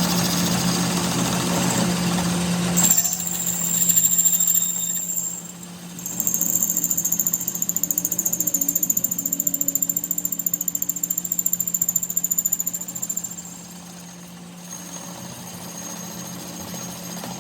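A power tool hammering rapidly, over a steady low hum. A high whine comes in about three seconds in, the rapid hammering runs from about six seconds to thirteen seconds, and then the sound drops to a quieter level.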